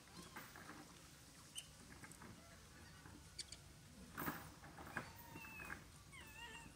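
Mostly near silence with a few faint scattered clicks. In the last second or so a monkey gives a few faint, short squeaky calls that rise and fall in pitch.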